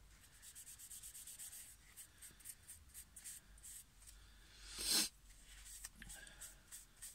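Folded paper towel rubbed quickly back and forth over a small fluted wooden float body, working sealer into the grooves. The result is a faint, rapid scratchy scrubbing, with one much louder rub about five seconds in.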